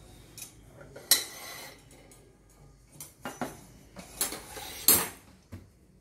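Metal parts of a Thompson-type surgical retractor frame (rods, clamps and fittings) clinking and knocking together as they are handled and fitted. There are about half a dozen sharp metallic knocks, the loudest about a second in and another near five seconds, each with a brief ring.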